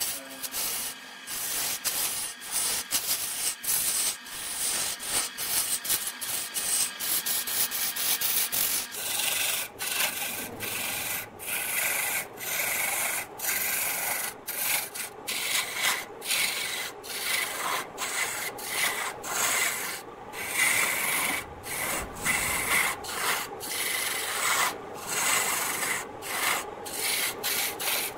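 A turning tool cuts a spinning log on a wood lathe, throwing shavings: a continuous hissing scrape broken by many brief gaps. After about nine seconds the gaps come less often.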